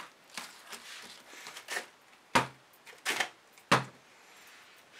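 A run of light knocks and clatter from plastic paint bottles being handled and set down on the work table, the two loudest knocks about two and a half and three and a half seconds in.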